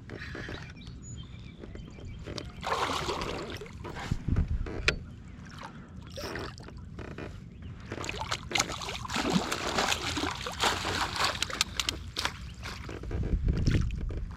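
Water sloshing and trickling at the side of a kayak, with many small clicks and knocks, and heavier low thumps about four seconds in and again near the end.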